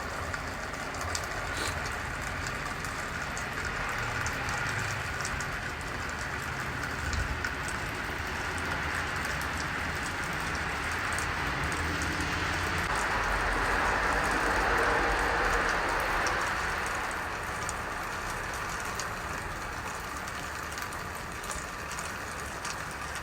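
Steady traffic hiss with low rumble on a snowy, slushy street. A vehicle's tyres swish through slush, the sound swelling and fading as it passes about two thirds of the way through.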